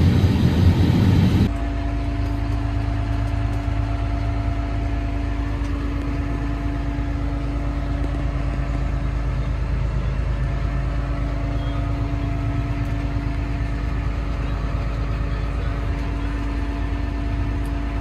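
Farm machinery's engine running steadily with an even hum and low rumble. It follows a louder, rougher noise that stops abruptly about a second and a half in.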